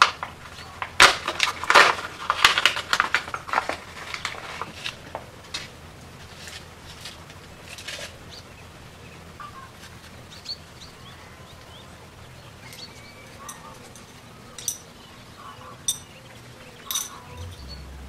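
Clear plastic packaging bag crinkling and rustling as it is opened, densest in the first few seconds, then thinning out. Near the end, a few light clicks as the thin aluminium circuit-board discs are handled.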